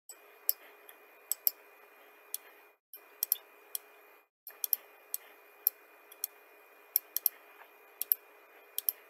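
Computer mouse clicking: about twenty sharp clicks at irregular spacing, several in quick pairs like double clicks. A faint steady microphone hiss with a low hum lies under them and drops out twice.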